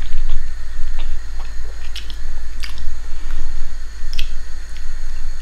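A person chewing a mouthful of homemade beef-and-pork meatball, with scattered small clicks and squishes from the mouth.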